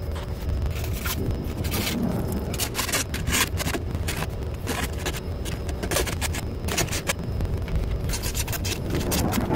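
Hand saw cutting through CPVC pipe: repeated back-and-forth sawing strokes, about two to three a second, over a steady low rumble.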